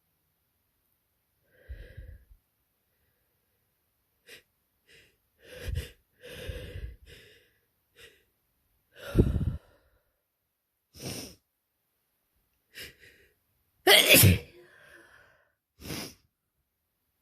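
A person's allergy sneezing fit: a string of short breaths in and sneezes, one after another, with the two loudest sneezes about nine and fourteen seconds in.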